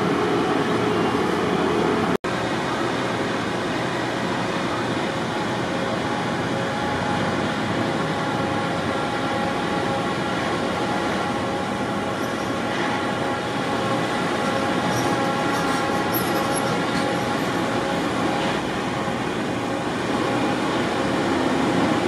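Steady drone of idling heavy engines and street noise, with several steady held tones. The sound cuts out for an instant about two seconds in.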